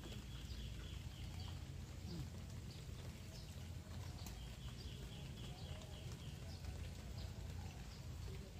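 Two runs of a rapid, evenly pulsing high animal call, each lasting about two seconds, the second starting about four seconds in, with scattered faint chirps over a steady low rumble.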